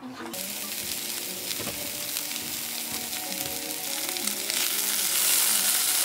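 Thick slices of pork belly sizzling in a hot frying pan, the fat spitting steadily and getting louder about two-thirds of the way through.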